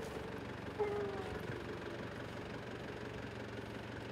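Four-wheel-drive vehicle's engine idling with a steady low hum, and a short higher-pitched sound about a second in.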